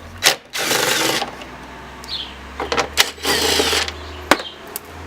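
Two short bursts of a tool working on the tail light's two 10 mm retaining bolts, with sharp clicks in between and a steady low hum underneath.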